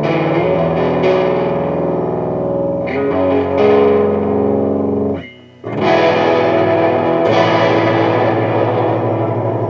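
Electric guitar with a Bare Knuckle Painkiller bridge humbucker, tuned to drop B, played through a Mesa/Boogie Dual Rectifier's clean channel that still picks up a lot of gain, heard through a camera microphone. Chords ring out, are cut off a little after five seconds in, and a new chord is struck and left to sustain.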